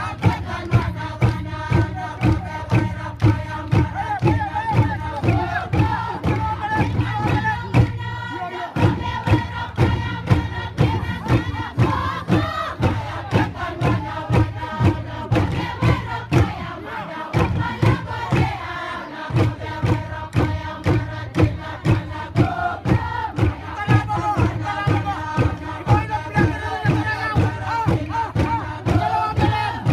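Traditional East New Britain dance chant: a group of voices singing over a steady, even beat of about two strikes a second, with a crowd's murmur behind.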